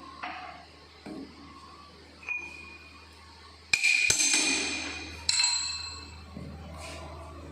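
Sharp metal-on-metal clanks that ring on and fade, the loudest nearly four seconds in and another about a second and a half later, over a steady low machine hum.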